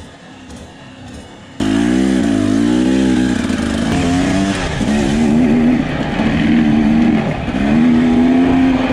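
Faint background music, then an abrupt cut about one and a half seconds in to a two-stroke Husqvarna TE300 dirt bike engine running loud, its revs rising and falling over and over as it is ridden.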